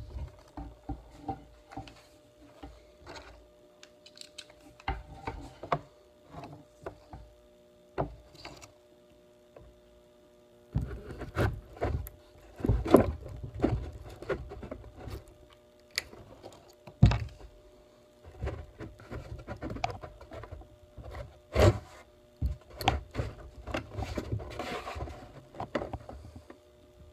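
Irregular knocks, thunks and scrapes from a hollow plastic goose decoy shell and the wooden board inside it being handled while small screws are set through the shell's sides with a cordless drill. The loudest are sharp knocks about halfway through and again a few seconds later.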